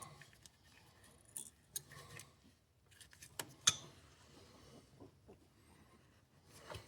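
Light metallic clicks and ticks of pliers working wire by hand, twisting it through the tractor's clutch bolts. The clicks come irregularly, the sharpest about three and a half seconds in.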